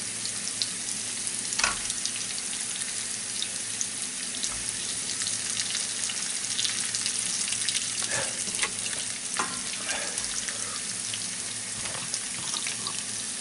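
Hot oil sizzling steadily in a frying pan with sliced garlic and chilli as pieces of floured hake are laid in, with scattered crackles and pops and a few louder clicks.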